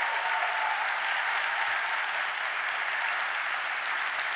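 Audience applauding steadily, a dense patter of many hands clapping that eases a little near the end.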